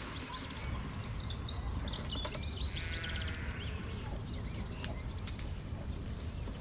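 Small birds chirping over a steady low outdoor background, with a few faint clicks in the second half.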